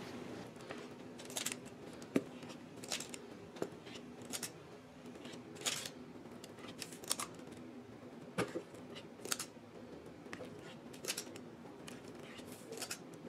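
Spring-loaded metal cookie scoop clicking and scraping against a mixing bowl as soft dough is scooped and released, light snaps about once a second.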